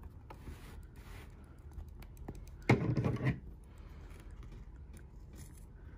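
Faint rustling and tapping of stiffened cotton fabric strips being folded and tucked by hand on a wool pressing mat, with a short, louder handling sound about three seconds in.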